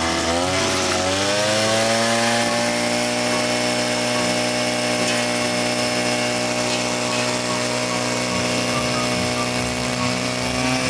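Petrol brush cutter with a nylon line head, its engine rising to high revs over the first couple of seconds and then holding steady at full throttle as the line trims grass along a concrete edge.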